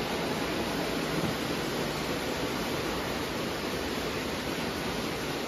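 Lionel O-gauge steam locomotive and cars running on three-rail track, a steady rumble of wheels and motor with a faint low hum under it.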